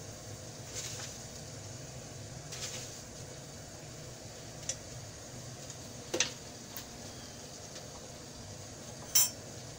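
A spoon tipping loose black tea leaves into a porcelain teapot, with a few light taps and a sharper clink near the end, over a steady low background hum.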